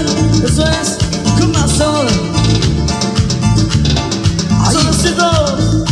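Live tropical cumbia band music: a steady repeating bass line under sliding guitar or keyboard lines, with regular shaker percussion.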